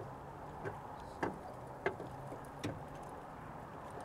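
A few light, sharp clicks and taps, about five in four seconds, from hands working at a pickup's headlight housing and bulb socket, over a faint steady low hum.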